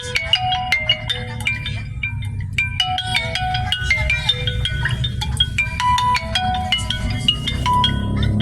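Vivo Y71 phone ringtone: a bright, quick melody of short mallet-like notes, repeating its phrase about every two and a half seconds, over a steady low hum.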